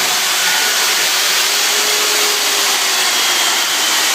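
Chainsaw cutting into a block of ice, a steady hissing whir with no break.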